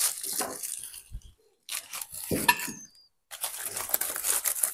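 Cutlery and plates clinking and scraping at a meal table, irregular and clattery, with the sound cutting out briefly twice.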